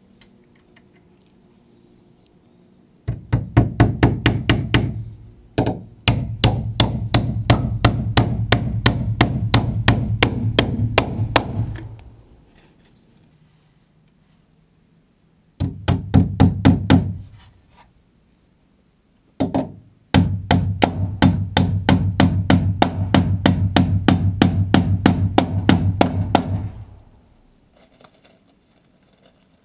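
Nails being driven through a steel Simpson Strong-Tie hurricane clip into wooden roof trusses and top plate, in four runs of rapid repeated blows, several a second, each run lasting a few seconds.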